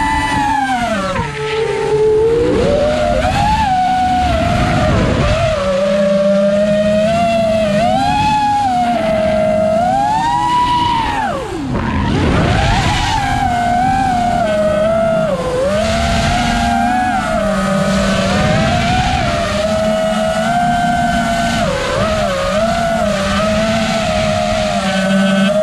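Brushless motors and 5-inch three-blade propellers of an FPV quadcopter whining, heard from on board the drone, the pitch swooping up and down with the throttle. The whine drops sharply and climbs back about a second in and again about eleven seconds in.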